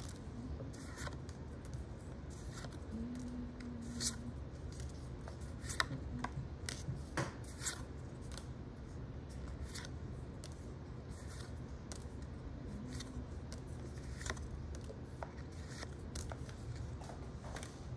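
Pokémon trading cards and booster packs being handled by hand. Cards slide and flick against each other in a series of short, irregular scrapes.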